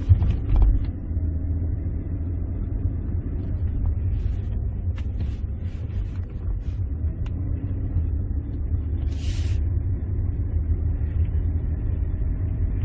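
Inside a moving Ssangyong Chairman 3.6 sedan, two thumps half a second apart as it goes over a speed bump, then steady engine and road rumble as it cruises on.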